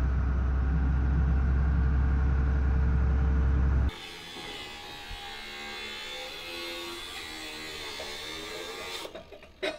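A heavy loader's engine running steadily with a deep, loud rumble, heard from on the machine. It stops abruptly about four seconds in, leaving much fainter, mixed background sounds.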